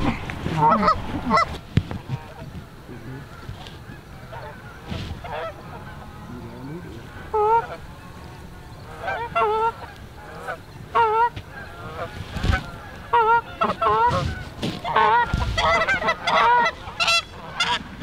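Canada goose honks and clucks in short bursts that come faster toward the end.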